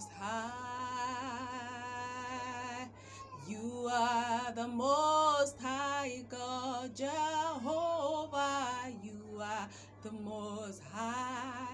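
A woman singing a worship song alone, without accompaniment, in long held notes with a wavering vibrato and short breaks between phrases.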